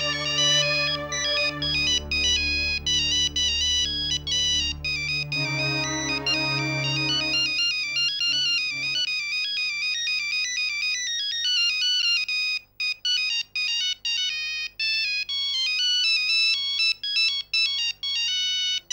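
Mobile phone ringing with an incoming call: a polyphonic ringtone playing a repeating, high electronic melody, with a few brief breaks near the end.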